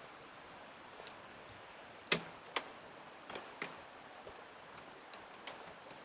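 A handful of sharp, irregular clicks and knocks over faint steady background noise; the loudest comes about two seconds in, followed by a cluster of smaller ones.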